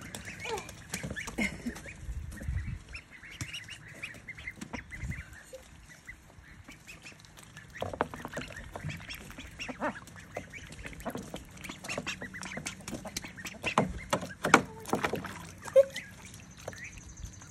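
A flock of young ducklings and goslings making many short, scattered peeping and honking calls, with frequent splashes as they paddle in a plastic kiddie pool of water; the calls and splashes are busiest and loudest near the end.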